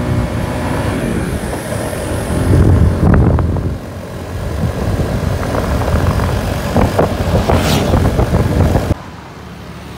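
Wind rushing over the microphone together with engine and road noise from a motorcycle riding at speed, loud and uneven. About nine seconds in it cuts abruptly to a quieter, steadier engine hum.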